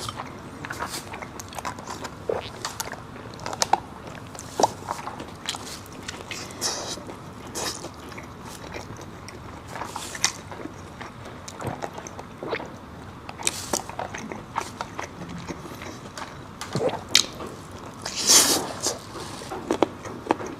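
A person biting and chewing food, with irregular short crunches and mouth clicks; the loudest crunching comes about 18 seconds in.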